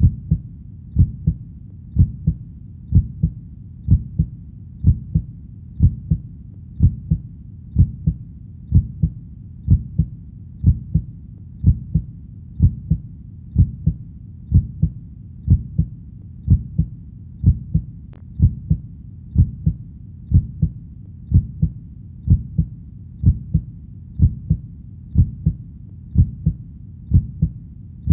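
Heartbeat, a steady lub-dub: a pair of dull low thumps about once a second, about 60 beats a minute.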